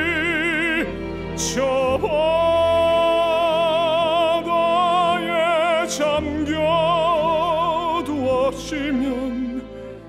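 A man sings a slow Korean ballad in a classically trained baritone voice with wide vibrato, holding long notes, over a soft instrumental accompaniment. The melody steps down to a lower note near the end.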